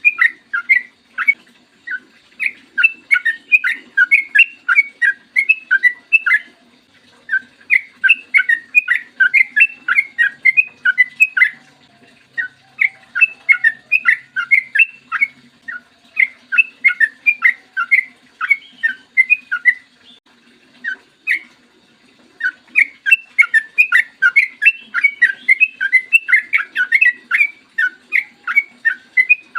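Yellow-vented bulbul (trucukan) singing long, quick runs of short whistled notes, in phrases of a few seconds broken by brief pauses.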